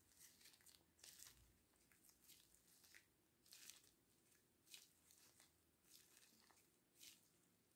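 Faint crackling and crinkling of hands in thin plastic gloves squeezing and kneading a crumbly mass of edible clay, in short irregular bursts.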